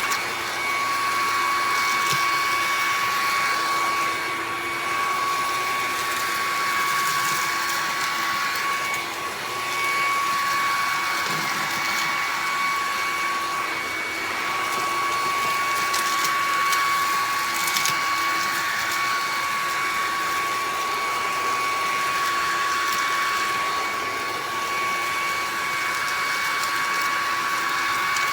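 Bissell PowerClean 200W cordless stick vacuum running steadily, its motor giving a constant high whine over a rush of airflow.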